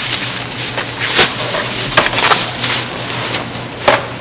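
Crackling, rustling handling noise with sharp clacks, loudest just after one second, a cluster around two seconds and one near the end.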